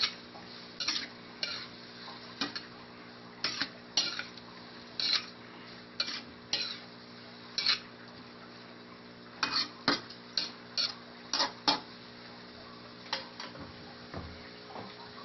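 Metal spatula scraping and tapping against a wok as tofu cubes and sweet potato tops are stirred, in irregular strokes about once a second, coming faster for a couple of seconds past the middle and thinning out near the end. A faint sizzle runs underneath.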